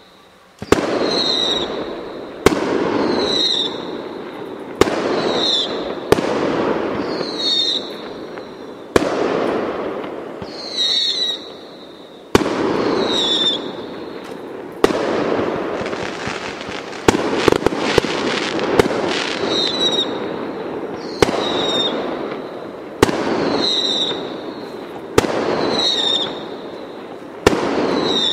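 Aerial fireworks shells bursting one after another, a loud bang every couple of seconds, each trailing off in a rolling echo. A quicker run of bangs comes about two-thirds of the way through. Many of the bangs are followed by a short high whistle-like tone.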